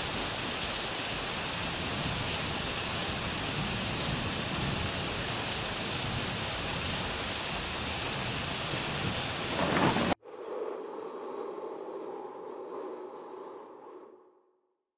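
Heavy rain hissing steadily during a thunderstorm, with low thunder rumbling under it and a brief louder surge just before the sound cuts off suddenly about ten seconds in. A faint short musical jingle follows and fades out.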